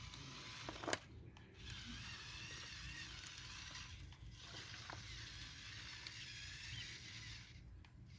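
Small electric motors and plastic gearing of a LEGO Technic RC truck whirring, cutting out briefly about a second in, about four seconds in and near the end, with a single sharp click about a second in.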